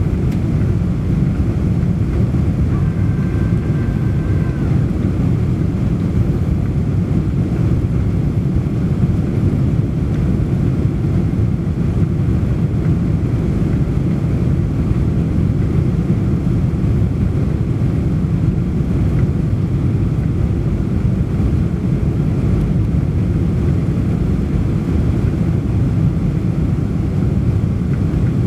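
Steady cabin noise of a Boeing 747 airliner descending to land: an even, deep rumble of engines and rushing air that does not change. A faint brief tone sounds about three seconds in.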